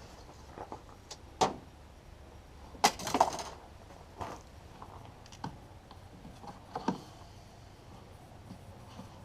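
Parts and tools being handled while working on the air filter housing: a series of scattered clicks and knocks, the loudest cluster about three seconds in.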